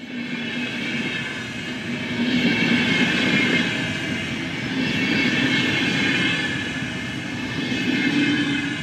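Double-decker passenger train running past on the rails: a continuous rumble with a hiss of wheel and rail noise that swells and eases a few times.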